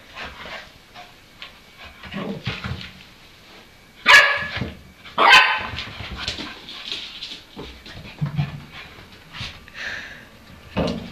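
A kelpie barking twice, sharp and loud, about a second apart, at its own reflection in a mirror, with fainter taps and scuffles around the barks.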